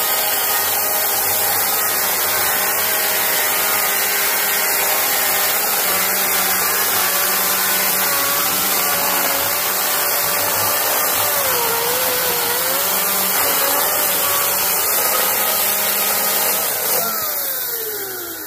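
Husqvarna Power Axe 350i battery chainsaw cutting through a log on its super mode: a steady electric motor whine with the chain rasping through wood. The pitch sags briefly about twelve seconds in. Near the end the trigger is let go and the motor and chain spin down in a falling whine.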